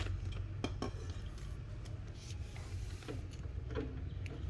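A few light metallic clinks and taps over a steady low hum.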